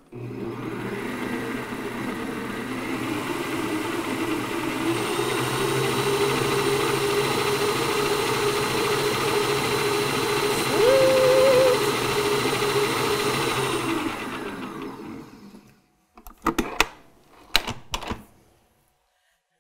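Kenwood Cooking Chef stand mixer's motor running with a beater spinning in an empty stainless steel bowl. It grows louder over the first few seconds, runs steadily, then winds down about fifteen seconds in. A few sharp knocks follow.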